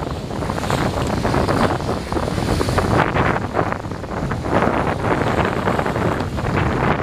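Wind buffeting the microphone: a loud, rumbling rush that swells and dips in irregular gusts.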